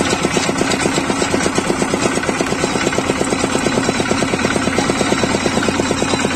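Motorised sugarcane juice crusher running, its steel rollers squeezing sugarcane stalks, with a fast, even rhythmic clatter throughout.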